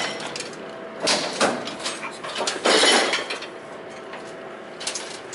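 Clattering and scraping of metal hardware being handled, in a few short noisy bursts over the first three seconds, then quieter with a single small knock near the end.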